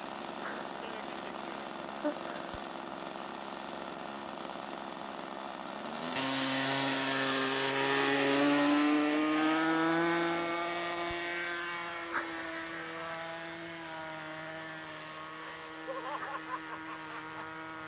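Small engine of an RC model airplane running at takeoff. It holds a steady buzz, gets suddenly louder about six seconds in and climbs slightly in pitch as the plane takes off, then settles at a steady, somewhat quieter pitch as it climbs away.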